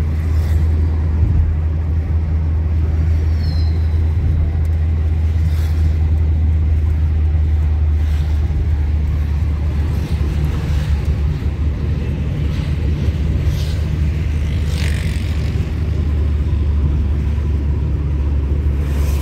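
Steady low rumble of a moving car's engine and tyre noise, heard from inside the car, with a short higher-pitched sound about fifteen seconds in.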